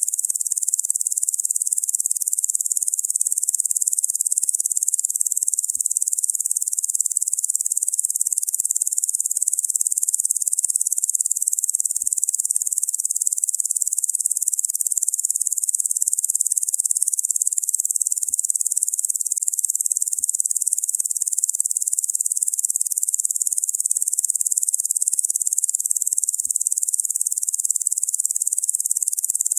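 Locusts buzzing in a dense, steady, high-pitched chorus with no breaks.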